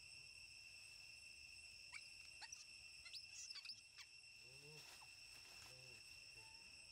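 Faint, steady high-pitched chorus of crickets or other insects. A few clicks and crinkles sound between about two and four seconds in, and a couple of short low calls rise and fall around the middle.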